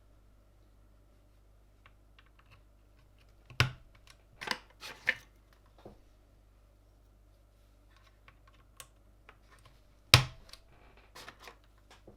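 Scattered clicks and snaps from a Gamakay LK67 mechanical keyboard as parts are pressed into it during assembly. There are two sharp, loud snaps, one about three and a half seconds in and one about ten seconds in, with a few softer clicks between them.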